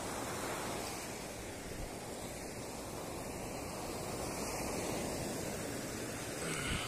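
Surf washing onto a sandy beach: a steady rushing noise that slowly swells and eases.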